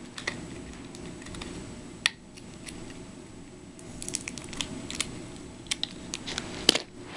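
Scattered small clicks and taps of hands working a tiny plastic toy brush out of its packaging, with a cluster of quick clicks about four seconds in, over a steady low background noise.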